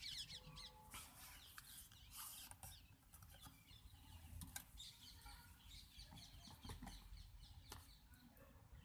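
Near silence: faint room tone with a few soft scattered clicks and rustles.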